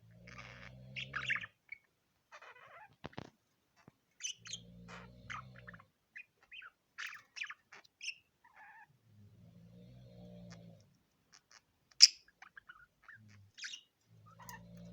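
Budgerigar chirping and chattering in short scattered bursts. A low hum comes and goes four times, and a single sharp, loud sound stands out about twelve seconds in.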